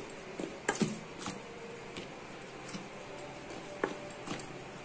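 A steel spoon stirring dry flour in a stainless-steel bowl: soft scraping with a few light clicks of the spoon against the metal.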